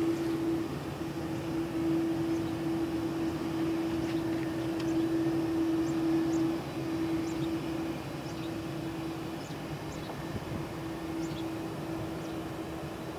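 An Airbus A330-203's General Electric CF6-80E1 turbofan engines running steadily at low power as the airliner taxis past. It is a continuous hum with one constant tone in it, easing slightly about two-thirds of the way through.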